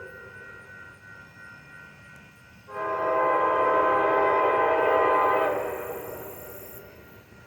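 Amtrak Texas Eagle locomotive's air horn sounding a chord, quieter at first. About two and a half seconds in comes a loud, long blast of the full chord that holds for nearly three seconds and then dies away.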